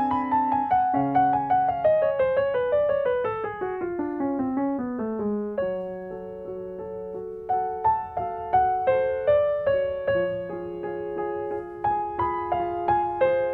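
Solo classical piano played on a concert grand. A run of notes steps down in pitch over the first few seconds and settles into a quieter stretch, then louder, sharply struck notes and chords return about halfway through.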